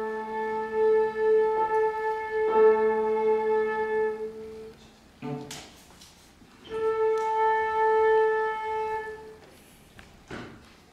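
Flute and cello holding long steady notes an octave apart, the pattern of players tuning to a shared A. The cello drops out and comes back in, and after a pause of a second or two the flute holds its note alone for a few seconds.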